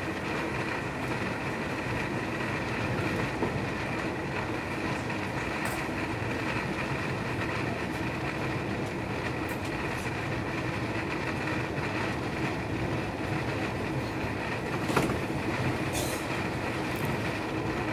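DB Regional Express train running along the line, heard from inside the passenger coach: a steady rumble of wheels on rail with a constant hum, and a few sharp clicks over the track, the loudest about 15 seconds in.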